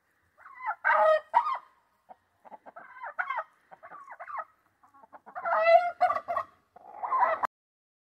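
Chickens clucking in short bursts of calls, loudest about a second in and around six seconds in; the sound cuts off abruptly near the end.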